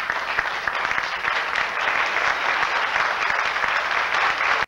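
Group applause, a dense steady patter of many hands clapping, which cuts off abruptly at the end.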